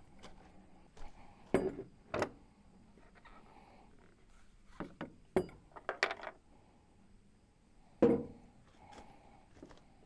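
Scattered knocks and clatters of objects being handled and set down, a few separate sharp sounds, the loudest a thump near the end.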